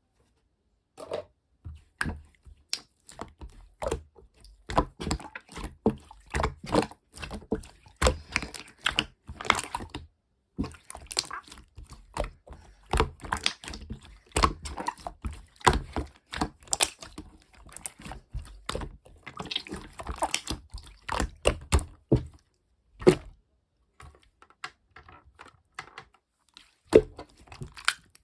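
Irregular small clicks, taps and knocks at close range, like objects being handled. They come in a dense run, thin out for a few seconds near the end, then pick up again.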